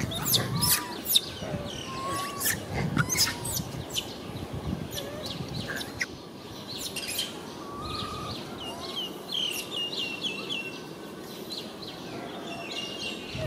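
Small birds chirping in quick, repeated short notes, with scattered sharp clicks.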